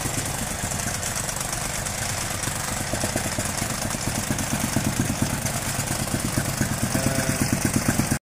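Petrol-engine tamping rammer (jumping jack compactor) running, its foot pounding the soil in rapid, regular strokes as it compacts the backfill of an excavation hole.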